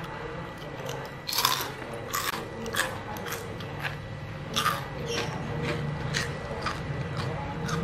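Crunching and chewing of crispy batter-fried shrimp: a sharp crunch every half-second to second, over a steady low hum.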